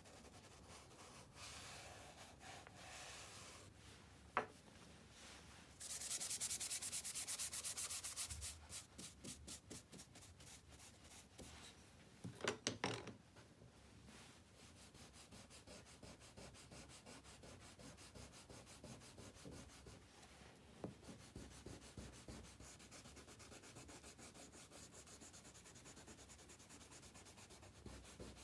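Stick of charcoal scraped rapidly back and forth on drawing paper, a dry scratchy rubbing in quick repeated strokes. The strokes are loudest a few seconds in, with a short harder scrape around the middle, and come back softer near the end.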